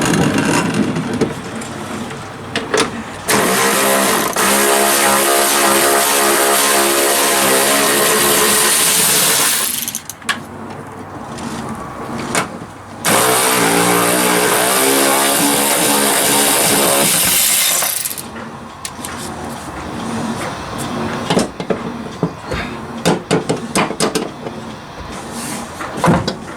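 Powered wrench running in two long bursts of several seconds each, with a hissing whine, as it undoes the driveshaft mount bolts. Short metallic clicks and knocks of tools and parts come between the bursts and after them.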